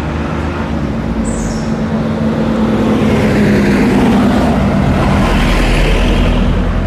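A motor vehicle's engine running close by, a steady hum that grows louder over the first few seconds and then holds, with a brief high chirp about a second in.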